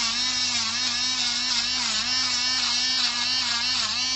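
Electric pet nail grinder's small motor whining steadily, its pitch sagging briefly again and again as the spinning sanding drum is pressed to a dog's nail.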